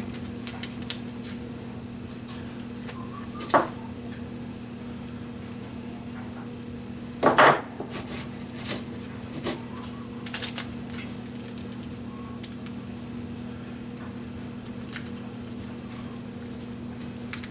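Objects being handled and set down on a wooden workbench: scattered light knocks and clicks, the loudest knock about seven seconds in, over a steady low hum.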